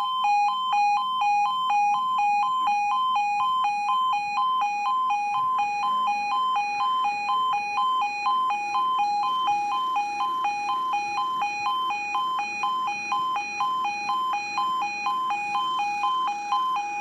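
UK level crossing audible warning alarm sounding its two-tone yodel, alternating rapidly between a lower and a higher tone while the barriers are down for an approaching train. A faint low steady hum joins about halfway through.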